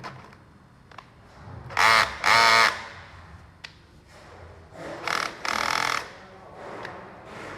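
Small power tool motor, an electric screwdriver or drill, run in short bursts: two quick loud runs about two seconds in, and two weaker ones around five to six seconds in.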